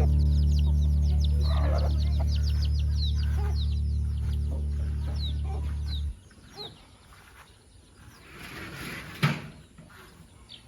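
Chickens calling, many quick high falling peeps with a few lower clucks, over sustained low background music chords that stop about six seconds in. Afterwards the calls are fainter, with one short knock near the end.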